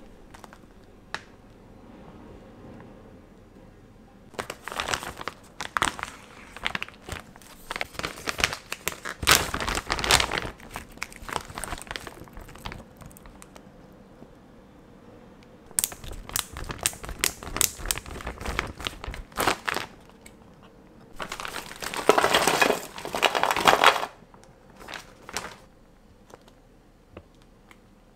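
Plastic frozen-food packaging bags crinkling and rustling as they are handled and opened, in three long bouts with quieter pauses between them.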